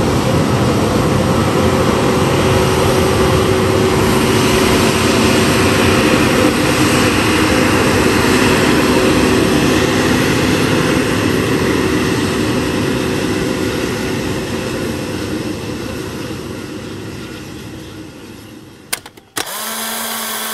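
Airbus A320neo's Pratt & Whitney geared turbofan engines running at taxi power, a steady jet whine over a broad rush that slowly fades over the later seconds as the airliner moves off, then cuts out. A brief electronic tone sounds near the end.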